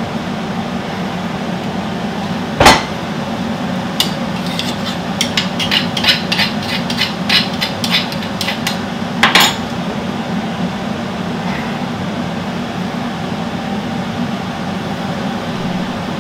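Kitchen utensils knocking on cookware and dishes while pesto is spooned in with the pasta. There is a sharp clank, then a quick run of light clinks over about five seconds, then another clank, with a steady low hum underneath.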